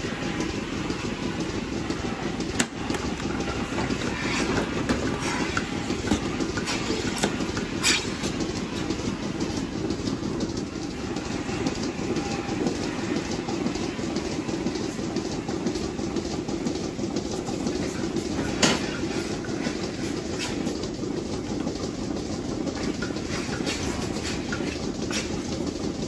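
Milking-parlour machinery running: the milking machines' vacuum and pulsation system makes a steady, busy mechanical noise, strongest in the low range. A few sharp knocks stand out, the loudest about two-thirds of the way in.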